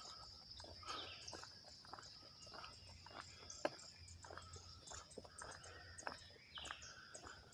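Faint outdoor ambience: a steady high-pitched drone of insects, with scattered short ticks and chirps over it.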